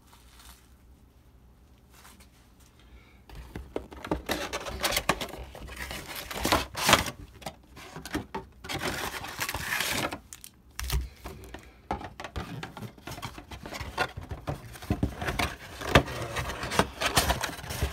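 A cardboard trading-card box being opened and handled: irregular scraping, tearing and rustling of cardboard and foil-wrapped card packs as they are pulled out and set down, starting about three seconds in after a quiet start.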